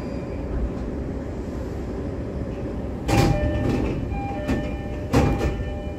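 Inside a JR East E531-series commuter car standing at a station: a steady low hum, then about three seconds in the passenger doors slide open with a rush of noise and the door-opening chime rings, with a second rush of noise about two seconds later.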